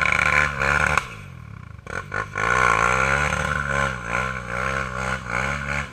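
Quad ATV engine revved hard through a loud aftermarket Big Gun exhaust, its pitch swinging up and down. It falls away about a second in, then revs again from about two and a half seconds until it cuts off sharply near the end.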